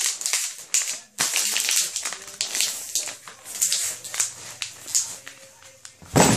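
A bottle and its cap being handled, with crackling rustle and many small clicks, then one sharp, heavy pop about six seconds in as the cap comes off.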